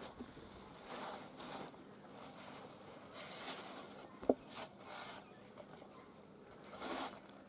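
Hands pressing and rubbing raw chicken drumsticks into a dry flour coating on a steel plate: soft rustling, scraping swishes in short bursts, with one brief sharp knock about four seconds in.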